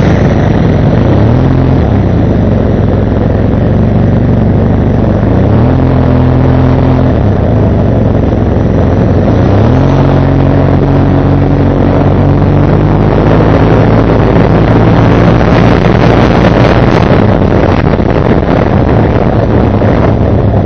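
Motorcycle engine running under the rider, its note rising in short steps a few times as it gathers speed in slow traffic, over a steady rush of road and wind noise.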